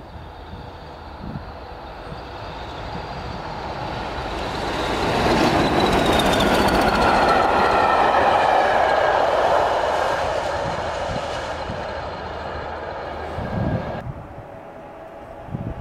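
A pair of Class 20 diesel locomotives, nicknamed "Choppers" for their engine note, pass close by. Their engine sound swells to a peak and drops in pitch as they go by, over the rumble and clatter of wheels on rail. The sound cuts off abruptly near the end.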